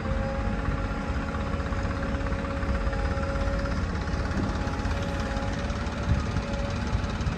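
JCB 3DX backhoe loader's diesel engine running steadily, with a low rumble and a steady high whine on top.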